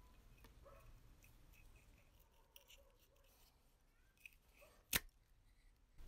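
Faint metal clicks and scrapes from a rusty Zippo lighter as its stuck inner insert is worked out of the outer case by hand, with one sharp click about five seconds in.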